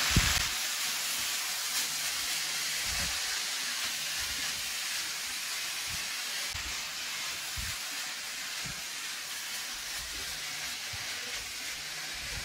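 Minced chicken and chopped vegetables sizzling steadily in a hot frying pan, with a few soft knocks as the mixture is stirred.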